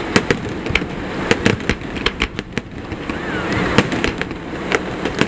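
Aerial firework shells bursting in a rapid, irregular series of sharp bangs and crackles.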